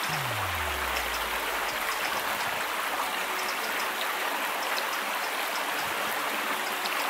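Steady rushing of a small stream.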